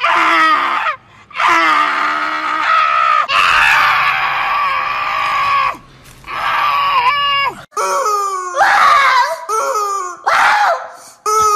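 An elderly woman's voice screeching long, shrill mock eagle calls at the sky, four drawn-out screams in a row. After about eight seconds these give way to shorter, wavering squawks.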